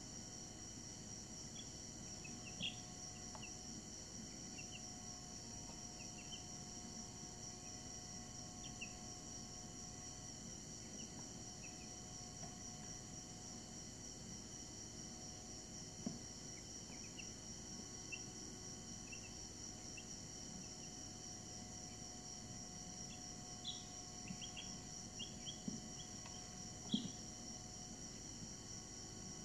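Week-old Brahman chicks giving scattered soft peeps, with a few sharp taps, over a steady high-pitched drone.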